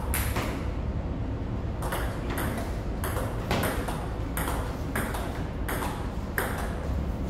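Table tennis rally: the celluloid ball clicking off the bats and the table about every half second, each hit ringing briefly in the hall, over a steady low hum.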